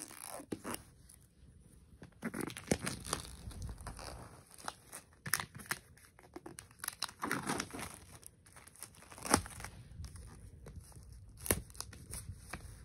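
Clear plastic shrink-wrap being picked at and torn off a Mac mini box by hand, crinkling and tearing irregularly with scattered sharp crackles.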